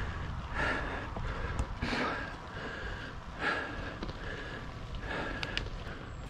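A cyclist breathing hard while riding uphill, a loud breath about every second and a half, over a steady low rumble of wind on the microphone.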